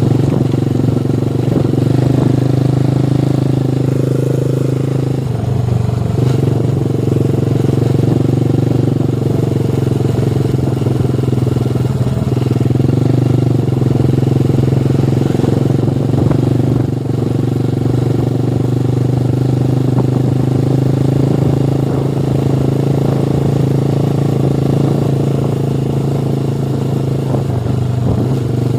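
Motorcycle engine running steadily under way, with small shifts in its tone as the throttle changes.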